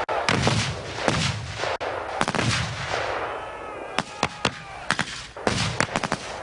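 Battle gunfire and explosions: three heavy blasts with rumbling tails in the first half, a short falling whine around the middle, then a run of sharp rifle and machine-gun shots, several in quick succession near the end.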